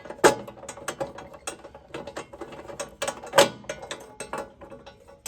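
Ratcheting socket wrench clicking in quick, irregular runs as fasteners are turned, with a couple of louder knocks.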